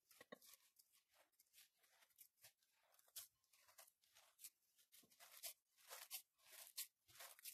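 Faint, irregular rustling and squishing of a hand working crumbly wheat-bran and coconut dough in a ceramic bowl.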